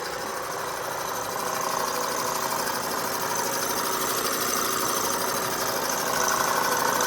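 Lathe running steadily while it bores out a router base, a steady machine hum with several whining tones that gets a little louder about six seconds in.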